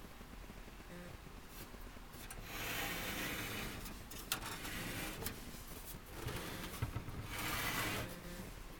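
Handling noise from a steel PC case and the parts in it: rubbing and scraping in two longer stretches, with a few sharp clicks in between.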